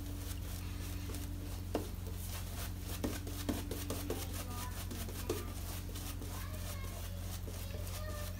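Dense silvertip shaving brush being worked over a lathered face, the bristles and lather giving a faint, rapid scratchy crackle, with a few louder clicks in the middle. A steady low hum runs underneath.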